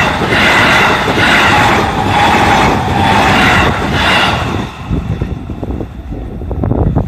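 JR East E531 series electric train passing at speed over a level crossing. It is very loud, with a rhythmic clatter about once a second as car after car goes by, and drops off sharply about four and a half seconds in to a low rumble with wind noise.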